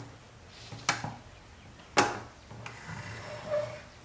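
Rusty pressed-steel Nylint Bronco toy being handled and moved about on the work surface. There is a sharp knock just under a second in and a louder one about two seconds in, then lighter clicks and rattles.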